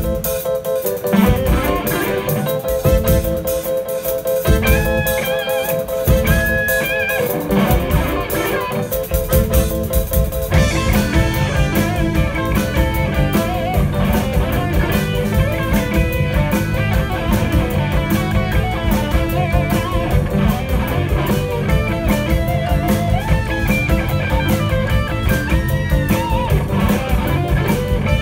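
Live rock band playing an instrumental passage on electric guitar, bass guitar and drums. It starts sparse, with a held note and scattered drum hits, and about ten seconds in the full band comes in with busy drums and cymbals.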